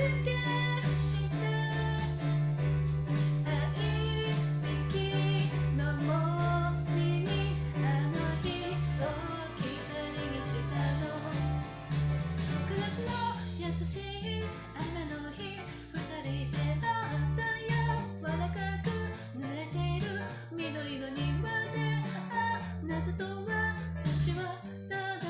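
Japanese pop song: a woman singing over bass and guitar, the bass pattern shifting about eight seconds in.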